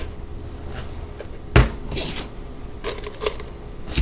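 Frozen chicken tenders set down one by one onto a multi-cooker's steaming tray: one solid knock about a second and a half in, then a few lighter taps and clicks.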